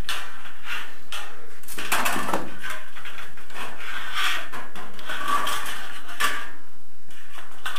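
Thin galvanized sheet-metal profile being handled by hand: irregular metallic clinks, rattles and scrapes, with a brief ringing note about five seconds in.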